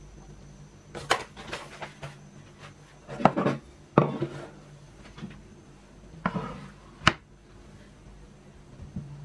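Kitchenware being handled on a countertop: a few separate knocks and clatters as a small frying pan is pushed aside and a wooden cutting board and kitchen knife are set down. The loudest knocks come about three, four and seven seconds in.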